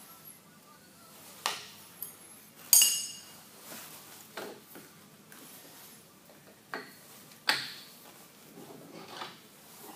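Sharp metal clinks and knocks as a Multifix quick-change tool post and its fittings are worked loose and lifted off a lathe's compound slide; the loudest knock, about three seconds in, rings briefly.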